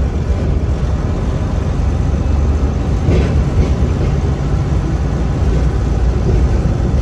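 Semi truck's diesel engine running, heard from inside the cab: a steady low rumble.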